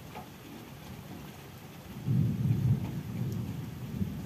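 Steady rain falling, with scattered drips. About halfway through, a deep low rumble of thunder rolls in suddenly and keeps rumbling.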